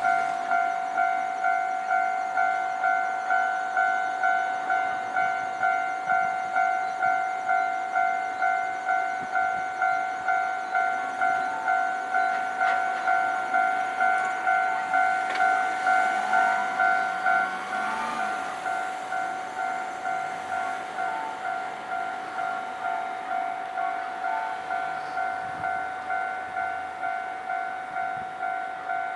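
Japanese railway level-crossing alarm bell ringing: a steady run of electronic dings, about one and a half a second, a little quieter from about two-thirds of the way in. A Nankai Kada Line train runs over the crossing partway through.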